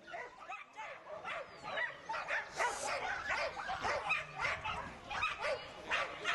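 Dogs barking and yipping over and over, short barks in quick succession, several a second.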